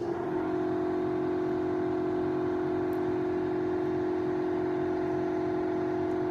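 A motor-driven machine starts suddenly and runs at a constant speed, giving a loud, steady whirring hum.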